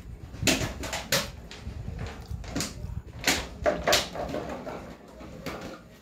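Close-miked eating sounds: chewing with wet mouth and lip smacks, about five sharp smacks in the first four seconds, then softer chewing.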